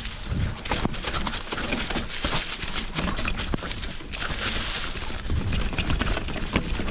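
2020 Specialized Pitch mountain bike riding fast downhill over dry leaves and stones: tyres crunching and hissing through the leaf litter, with a rapid run of rattling knocks and clatters from the bike, over a low rumble.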